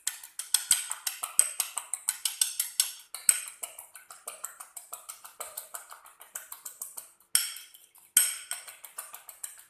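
A fork beating an egg with a few drops of vinegar in a bowl: quick, even clinks of metal against the dish, several a second, with two louder scrapes near the end.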